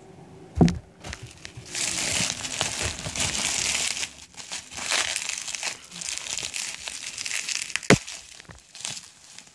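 Plastic bubble wrap crinkling and crackling as it is handled and pulled around a wrapped bottle. There is a knock about half a second in and a sharp tap near the end.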